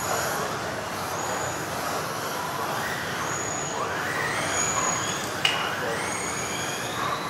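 Electric RC off-road racing cars running a heat, their motors whining up and down in pitch as they accelerate and brake around the track, with one sharp knock about five and a half seconds in.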